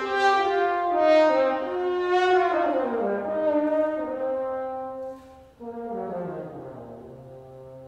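French horn playing a falling run of notes, breaking off briefly about five and a half seconds in, then starting a second phrase that slides down to a low held note fading away.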